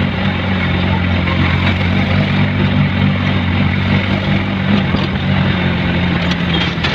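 Vehicle engine running steadily as the vehicle drives, heard from inside the cab: a constant low hum under road noise.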